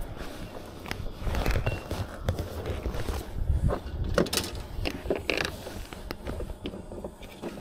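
Handling noises as a caught bream is held and handled in a kayak: scattered clicks, knocks and rustles, busiest around the middle, over a low rumble.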